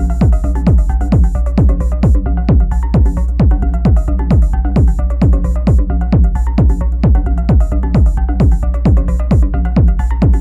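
Techno played live on an Elektron Analog Rytm drum machine: a steady kick drum, each hit sweeping sharply down in pitch, over a sustained low bass, with hi-hat-like ticks on top. A faint high tone drops out about two seconds in.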